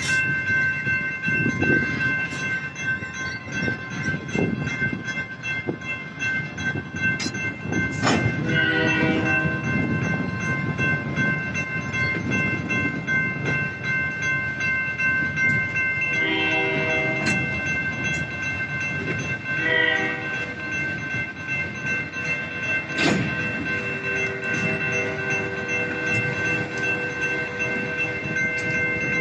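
Freight train of gondola cars rolling through a grade crossing, wheels rumbling and clicking over the rail joints, while the crossing bell rings steadily. A train horn sounds in the long, long, short, long crossing pattern, the last blast held for several seconds.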